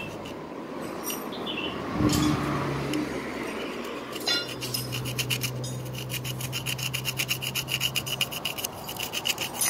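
Rapid back-and-forth scraping of a tool on the grimy crankcase of a Yamaha two-stroke motorcycle engine, cleaning the dirt off the stamped engine number; it starts about four seconds in.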